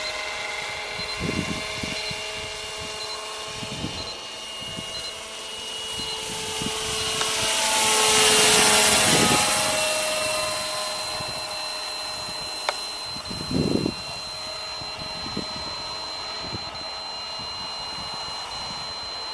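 Radio-controlled scale MD 530 helicopter flying with a water bucket slung beneath, its rotor and motor giving a steady whine. It grows loudest about eight or nine seconds in as it passes close, with the pitch sweeping during the pass, then fades back to a steady hum.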